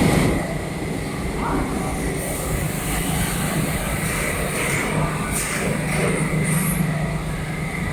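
Steady hum of machinery, with a faint hiss and a few light clicks.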